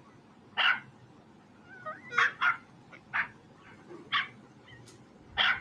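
Dog barking in short, high-pitched yips, about six of them spaced irregularly, with a brief rising whine near two seconds in.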